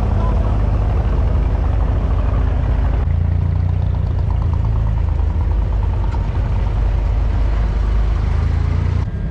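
Inboard diesel engine of a wooden abra water taxi running steadily under way, a low-pitched engine sound. The texture shifts about three seconds in.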